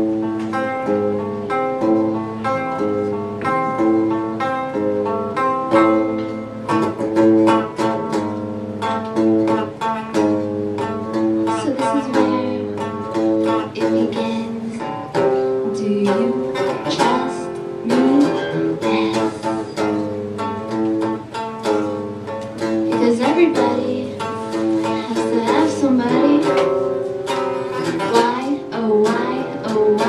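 Live electric guitar playing a repeating picked pattern, with a voice singing over it from about halfway through.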